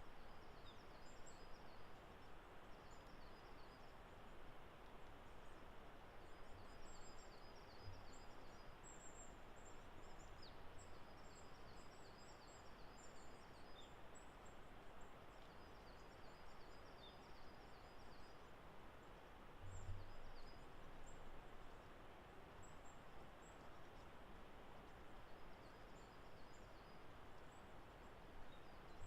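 Faint songbird song: short high-pitched trilled phrases repeated every few seconds over a steady background hiss, with a brief low thump about two-thirds through.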